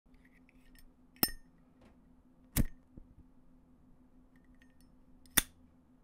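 A Zippo lighter's hinged metal lid being flicked: three sharp metallic clicks, the first with a brief ring, about a second in, again a second and a half later, and near the end, with faint handling ticks between.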